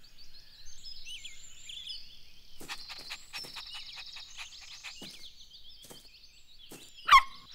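Cartoon outdoor ambience of small birds chirping and trilling, many short high calls overlapping. A single brief, louder squeak sweeps upward near the end.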